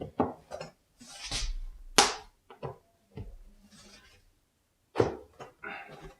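Vinyl flooring planks being handled and fitted: rubbing and sliding of plank on plank and subfloor, with a few sharp knocks, the loudest about two seconds in.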